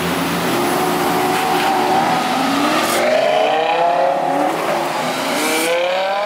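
Lamborghini supercar engine revving hard as the car accelerates, its note climbing in pitch in repeated loud surges.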